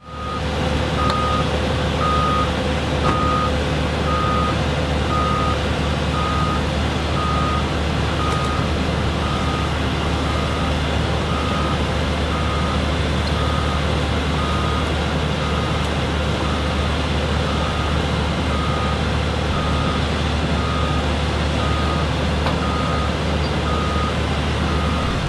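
Heavy-equipment backup alarm beeping about once a second, one steady tone, over the steady low hum of a running heavy machine, which stops near the end.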